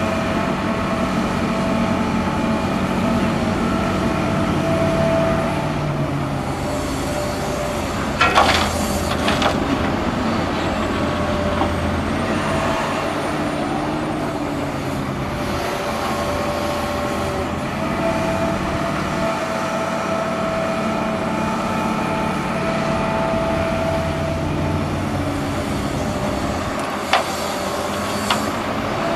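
Hitachi Zaxis 350 hydraulic excavator working: diesel engine and hydraulics running steadily, with a whine that comes and goes as it digs and swings. A loud clatter about eight seconds in, and two sharp knocks near the end as the bucket load is dropped into the dump truck's body.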